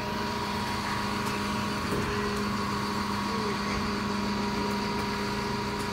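Mercedes-Benz Econic bin lorry running at a standstill: a steady engine hum with a constant whine over it.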